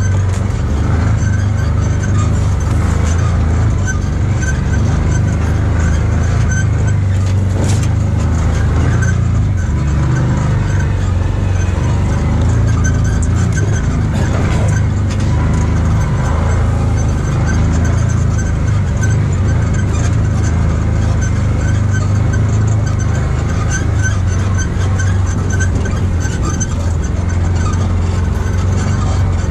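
Side-by-side UTV engine running steadily with a constant low drone as it drives along a rough trail, heard from inside the cab.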